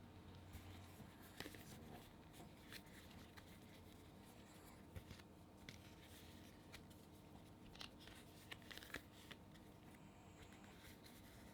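Faint handling sounds: scattered light clicks and rubbing of fingers on a vinyl figure as it is turned in both hands.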